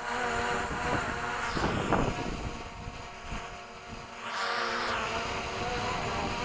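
DJI Mavic Pro quadcopter's propellers buzzing steadily in flight, with gusty wind rumbling on the microphone.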